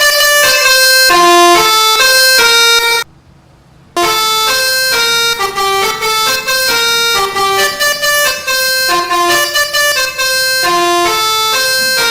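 Bus 'telolet basuri' multi-tone air horn playing a melody of short held notes that step up and down in pitch. It cuts off about three seconds in and is gone for about a second, then another horn melody starts.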